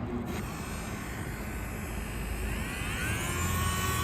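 PROXXON mini router's small electric motor running, its whine rising in pitch about two and a half seconds in, then holding steady as it comes up to speed.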